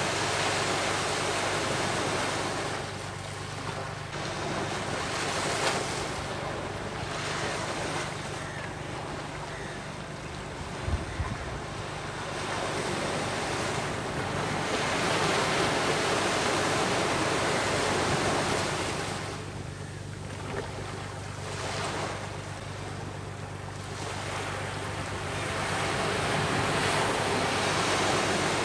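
Surf of the Bay of Bengal breaking and washing up a sandy beach. The rush of the waves swells and fades in slow surges every few seconds.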